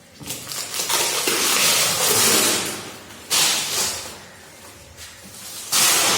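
Packaging wrapper rustling and crinkling as it is pulled off the keyboard's box, in three spells: a long one about a second in, a short one past the middle and another near the end.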